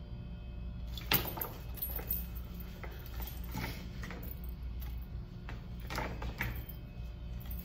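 Steady low room hum, with a sharp knock about a second in and then scattered knocks and rustles from a person getting up from a desk and moving about.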